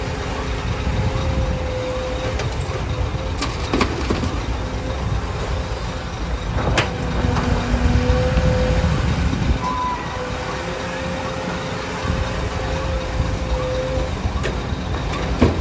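Heavy diesel engines of excavators and trucks running with a steady low rumble, broken by a few sharp metallic clanks, about four and seven seconds in and near the end.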